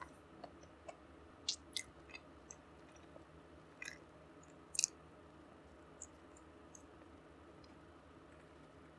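Mukbang eating sounds: a few short, sharp clicks and smacks of chewing, the loudest about five seconds in, over a faint steady background hum.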